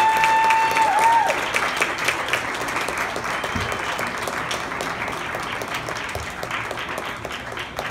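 Audience applauding, the clapping thinning out and fading toward the end. A high drawn-out cheer rides over it in the first second.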